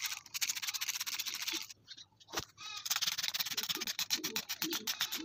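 Water being sprinkled onto loose potting soil in a pot, a steady hissing spatter that stops for about a second partway through, with a single click in the pause, then starts again.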